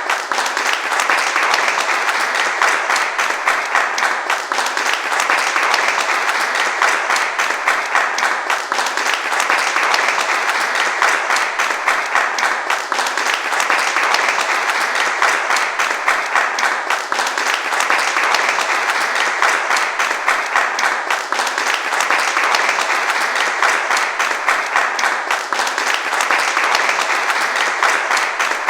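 A crowd applauding steadily: dense, continuous clapping of many hands, at an even level with a slight dip about every four seconds.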